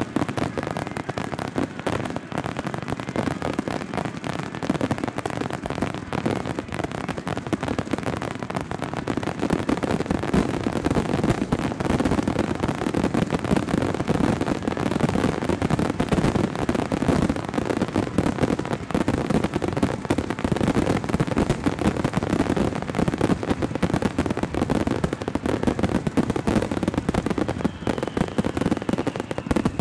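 Starmine barrage of aerial firework shells launching and bursting in rapid, overlapping booms with no gaps between them. It grows louder about ten seconds in as the barrage thickens.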